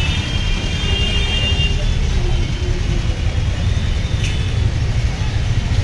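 Road traffic on a busy street, a steady low rumble, with a vehicle horn sounding for nearly two seconds at the start.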